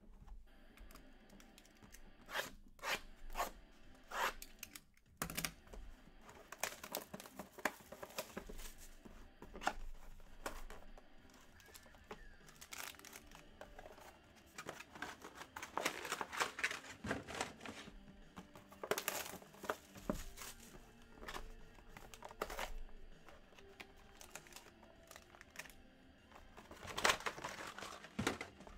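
Boxes of 2020 Panini Playbook football cards being torn open by hand: wrapping and packaging ripped and crinkled in a long, irregular run of sharp rips and crackles, loudest near the end.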